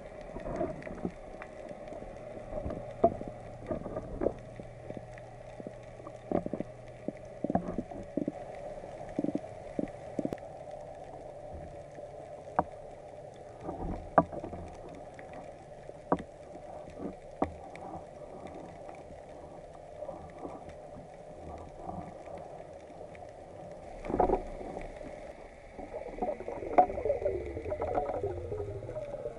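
Underwater sound heard through a camera's waterproof housing: a steady wash of water noise with scattered sharp clicks and knocks. A louder burst comes about 24 seconds in, followed by a rush of crackling bubbles near the end.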